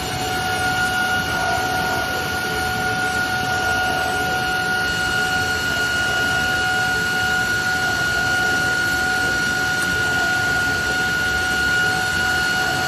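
EGURKO DART 800 CNC machining centre running: a steady high whine of several even tones over a constant mechanical hum, holding unchanged throughout.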